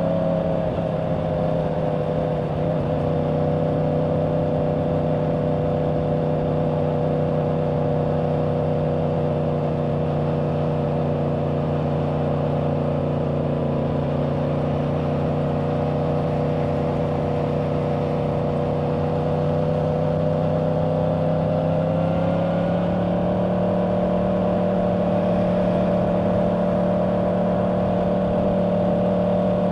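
Yamaha R1's crossplane inline-four running at a steady cruise through its stock exhaust, with wind rushing over the microphone. The engine note eases off a little at first, then rises again about two-thirds of the way through as the bike speeds up, and holds there.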